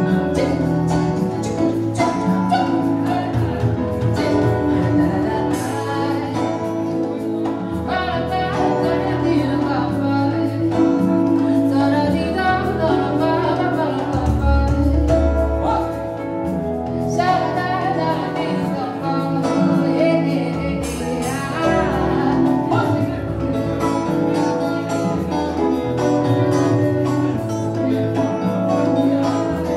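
Live band playing a song with a steady beat: electric guitar and keyboard over bass, with a man singing into a microphone over the band.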